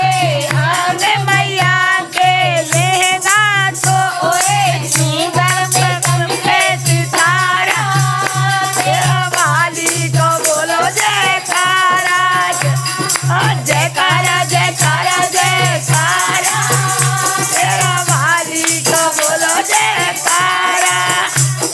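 Women singing a Hindi folk devotional bhajan to the mother goddess (a jaikara song), with a high, wavering melody. Rhythmic jingling percussion and a steady low beat run underneath.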